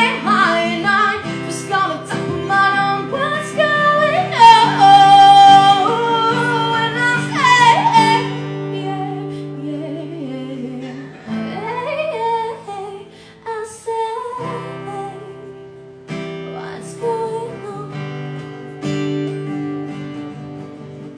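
A woman singing with acoustic guitar accompaniment. She holds a long high note about halfway through, then the song continues more quietly.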